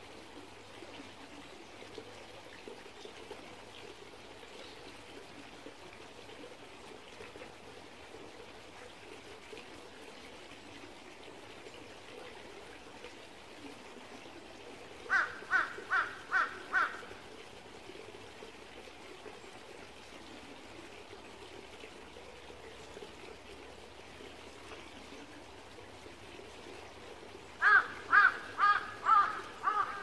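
A small stream trickling steadily, with a crow cawing in two quick series: about five caws halfway through and about seven more near the end.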